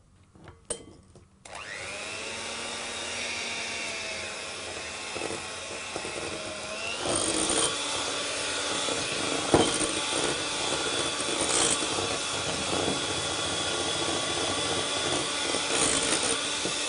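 Electric hand mixer switched on about a second and a half in, running steadily as it beats eggs, sugar and cornstarch in a glass bowl. Its whine steps up in pitch around seven seconds, with a sharp knock a couple of seconds later.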